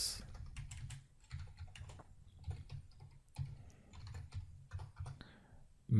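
Typing on a computer keyboard: a quick, irregular run of faint keystroke clicks.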